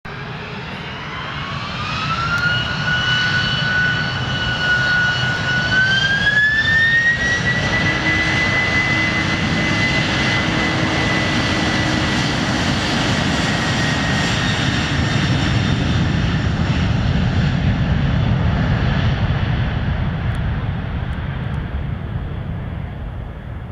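Boeing 767-300 airliner's twin turbofan engines spooling up to takeoff thrust for a takeoff roll. A whine climbs in two steps over the first several seconds, then holds steady over a loud jet rumble, and the sound tapers off near the end as the aircraft rolls away down the runway.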